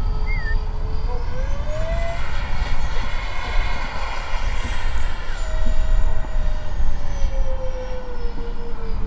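Twin 50 mm electric ducted fans of an RC model flying boat whining in flight. The pitch rises over the first two seconds, holds, then falls away steadily from about five seconds in as the model passes.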